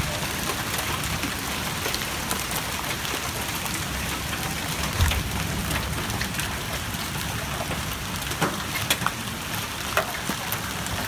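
Heavy hailstorm with golf-ball-sized hail: a steady hiss of hail and rain pelting the street, cars and lawn, broken by sharp cracks of single hailstones striking hard surfaces. There is a louder thump about five seconds in and a few more loud cracks near the end.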